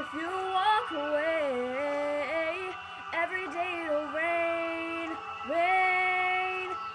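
A girl's solo singing voice without clear words: quick melodic runs, then two long held notes in the second half.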